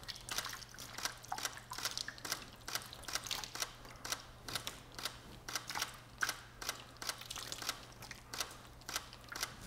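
Water poured from a glass splashing and pattering onto a waterproof Bluetooth speaker and a wet plastic sheet, in short sharp splashes about three a second, mixed with the clicks of a camera shutter firing a photo series. A faint low steady hum runs underneath.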